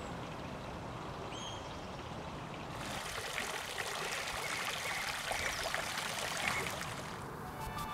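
Stone garden fountain splashing and trickling, water spilling from its bowl, coming in about three seconds in after a quieter stretch of outdoor hiss with a faint chirp or two. Music starts right at the end.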